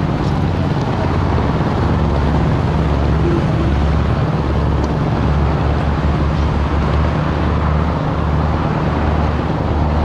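Steady city road-traffic noise from a busy multi-lane road, with a deep low rumble underneath.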